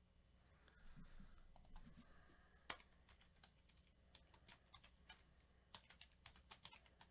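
Faint, irregular typing on a computer keyboard: scattered light key clicks, with one sharper click about three seconds in and a quicker run of taps after that.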